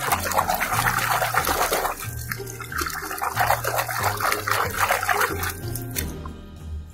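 A hand swishing and splashing water in a plastic tub while washing a muddy plastic toy, in rapid irregular sloshes that die away about six seconds in.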